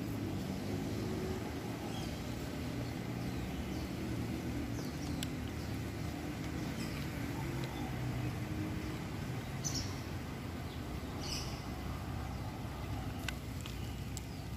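Steady low outdoor rumble with a few short bird chirps, the clearest about ten seconds in and again a second and a half later.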